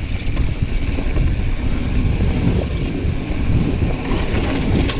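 Mountain bike riding down a dirt trail: steady wind buffeting on the riding camera's microphone mixed with the rumble and rattle of the tyres and bike over rough ground.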